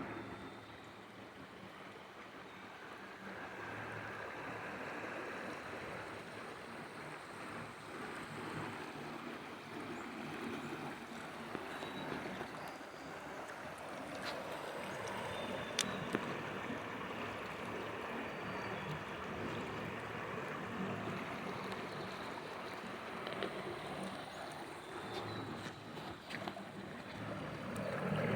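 Floodwater rushing with a steady, even rush of water, broken by a few faint clicks.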